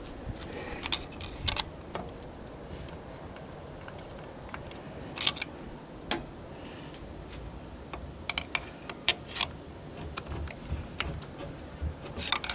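Scattered light clicks and taps of small tools and parts being handled, irregular, with a cluster about a second in, a few around five to six seconds in, and more near eight to nine seconds, over a steady hiss.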